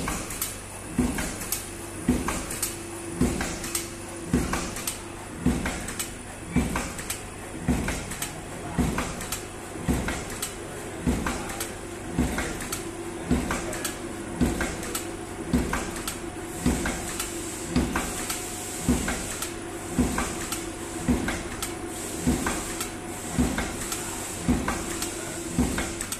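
Automatic PVC sheet hot stamping machine cycling: the stamping head knocks down about once a second in an even rhythm, over a steady machine hum.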